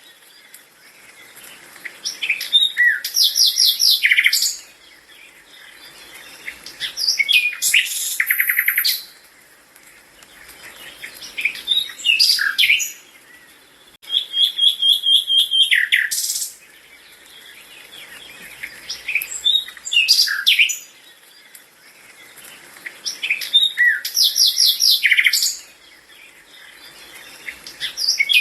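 A bird singing, repeating a high-pitched song phrase about every four seconds; each phrase lasts around two seconds and mixes quick trills with short downward-sliding notes.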